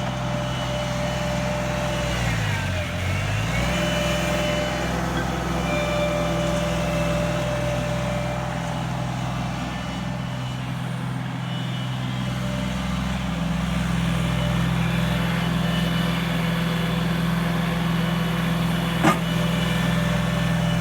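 Ditch Witch SK850 mini skid steer engine running steadily. About two seconds in, its pitch dips for a second or so and then comes back up. A single sharp knock is heard near the end.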